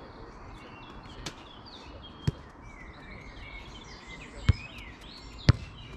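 Football kicked four times, sharp thuds about a second, two seconds, four and a half and five and a half seconds in, the last two loudest. Birds chirp throughout.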